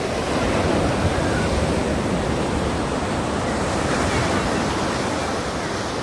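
Sea waves breaking and washing up the shore, a steady rush of surf.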